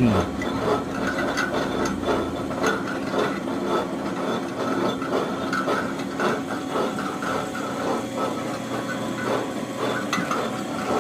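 Metal lathe running: a steady hum with a light, irregular mechanical clatter.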